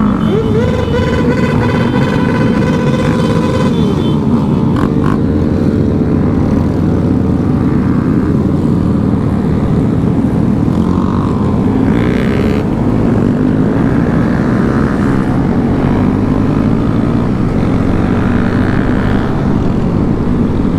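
Small motorcycle engine running under way, its pitch rising and falling with the throttle, with wind rushing over the microphone.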